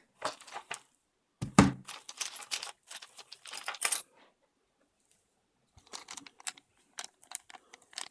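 A metal key and car door-lock parts clinking and rattling as they are handled, with a louder knock about one and a half seconds in. After a short quiet pause comes a run of light clicks.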